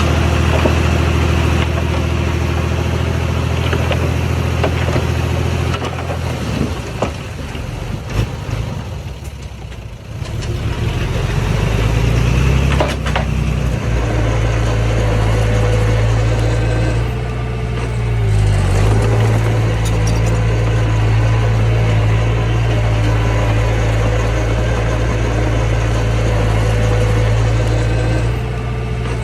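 Diesel engine of a heavy earthmoving machine running steadily. It eases off about eight seconds in, revs back up a few seconds later with a sharp knock, and then holds steady under load.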